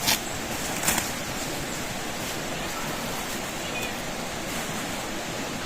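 Steady rushing of river water, with two sharp knocks about a second apart near the start.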